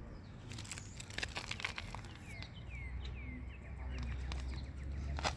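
A bird calling with a quick run of four or five falling chirps, over a steady low rumble and a few scattered clicks and taps, with a sharper knock near the end.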